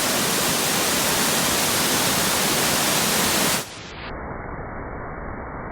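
Steady rushing roar of a waterfall. About three and a half seconds in it cuts abruptly to a quieter, duller rush.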